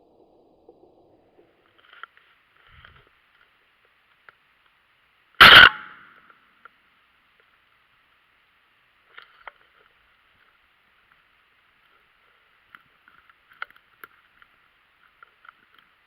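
A single loud shotgun shot about five and a half seconds in, with a short ringing tail, over a faint steady high-pitched buzz and a few small clicks.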